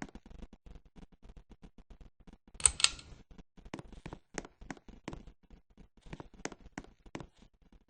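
Mechanical clicking: two sharp, loud clicks about two and a half seconds in, then a string of lighter single clicks roughly a third of a second to a second apart, over a faint, fast, steady ticking.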